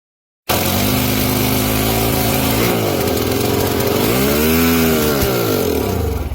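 A small motor running loud, its pitch rising and falling twice, starting and stopping abruptly.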